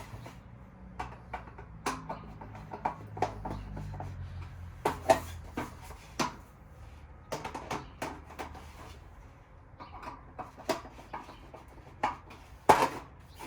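Hand tools clicking and knocking against the heater's metal bolts and frame in scattered, irregular strikes as bolts are tightened one after another.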